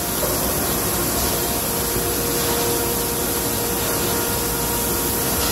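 Steady machinery noise in a cheese-processing room: an even hiss with a low steady hum, without distinct knocks or clatter.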